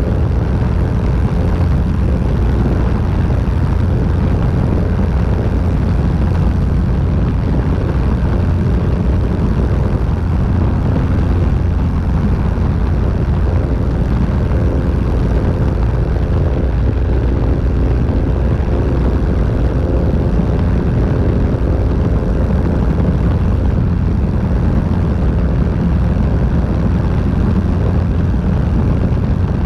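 Single-engine light aircraft's piston engine and propeller running steadily at climb power just after takeoff, heard from under the wing with a heavy rush of airflow over the microphone.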